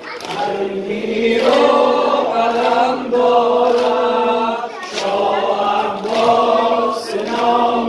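A male voice sings a Persian noha, the Muharram mourning lament, through a microphone with other voices joining in. Long held notes rise and fall in phrases. Faint slaps come about once a second, the mourners beating their chests in time.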